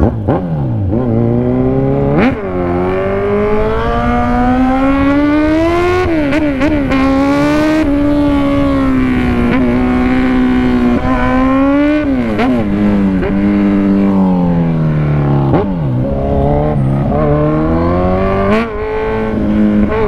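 Sport motorcycle engine under way in traffic: its pitch climbs with the throttle and drops sharply at each gear change, several times, over a steady rush of road and wind noise.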